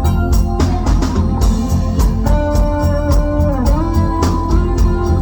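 Instrumental passage of 1980s-style pop music: an organ-like electronic keyboard holds sustained notes, some bending in pitch, over a steady drum beat and bass.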